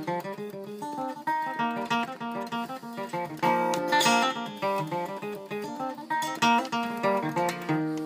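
A 1965 Gibson Country Western acoustic guitar, capoed, played solo: a quick, steady stream of picked notes and chords.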